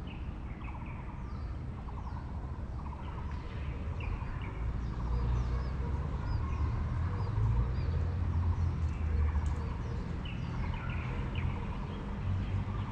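Birds chirping and calling in the trees, with many short high chirps and some quick repeated trills, over a steady low rumble.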